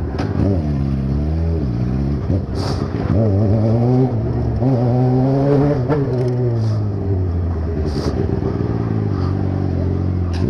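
Motorcycle engine at low speed, revved up and down again and again, its pitch rising and falling every second or two.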